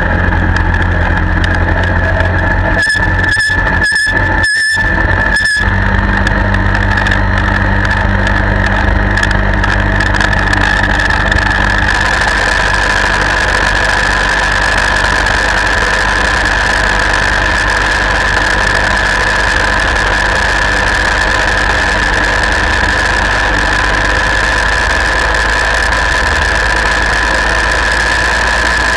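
Gyroplane engine and propeller running steadily as the aircraft rolls along the runway, a low engine drone under a steady high whine.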